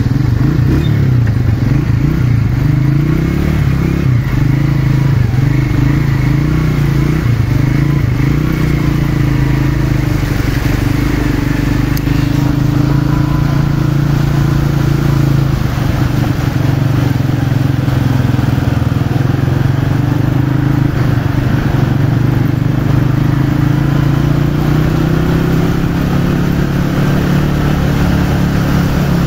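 Small motorcycle engine running steadily while riding, its pitch drifting slightly with the throttle, over the wash of tyres through floodwater.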